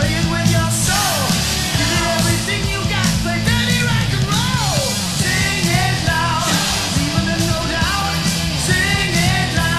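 Loud 1980s hard rock recording: distorted electric guitars over bass and drums, with lead lines bending in pitch above them.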